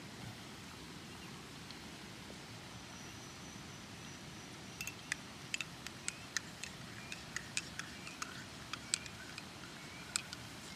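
Metal spoon stirring in a ceramic mug, clinking against its sides in light, irregular taps, two or three a second, starting about halfway through.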